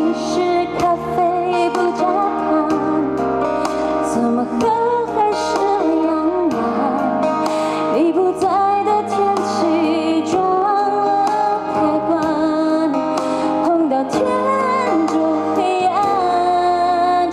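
Pop ballad's instrumental break played live over a stadium sound system: a melody over guitar and a steady bass line, with some female vocals.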